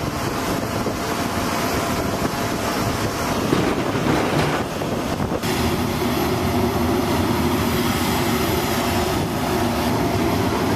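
Steady jet aircraft noise from a C-17 cargo jet on the flight line, an even rush of engine noise that shifts in tone about five and a half seconds in.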